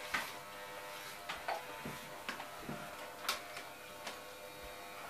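Electric hair clippers running with a steady buzz, shaving a head close to the scalp, with a few faint clicks scattered through.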